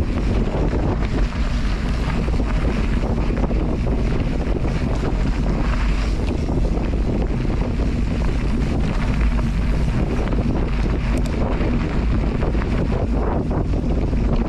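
Steady, loud wind noise buffeting the microphone, a continuous rushing roar with constant small crackles and no let-up.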